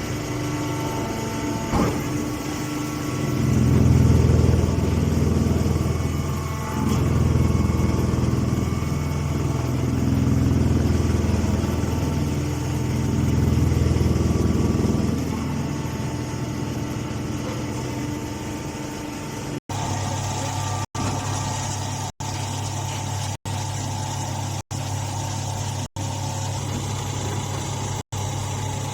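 Engine-driven machinery running with a steady drone. A deeper rumble swells and eases about four times, then the sound changes abruptly to a steadier hum broken by brief cut-outs about every second and a quarter.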